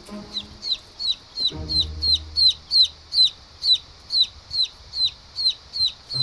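A three-day-old chick peeping loudly and insistently, about two short calls a second, each falling sharply in pitch: the distress peeping of a chick separated from its flock.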